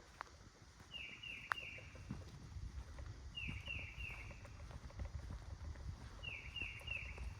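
A songbird singing short phrases of three quick down-slurred whistles, repeated about every two and a half seconds, over soft footsteps. There is a sharp click about a second and a half in.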